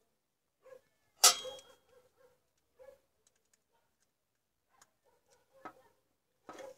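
Clicks and taps of handling a compact fluorescent bulb's plastic base and ballast circuit board while desoldering it with a soldering iron: one sharp click about a second in, then a few lighter scattered taps.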